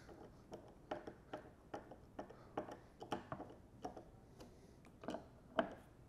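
Hand screwdriver driving the screws of a mounting plate bracket into a board: a run of faint, uneven clicks and ticks, about two or three a second.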